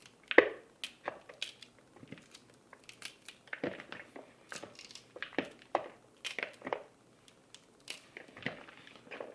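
Raw cauliflower florets being snapped apart by hand over a plastic bowl: an irregular run of crisp snaps and crunches.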